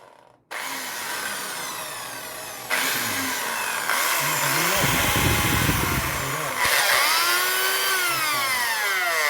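Electric drill's motor running, its whine rising and falling in speed several times as the trigger is worked, with a low rumble for a couple of seconds in the middle and a falling whine near the end as it winds down. The motor seems to spin inside while the chuck does not turn.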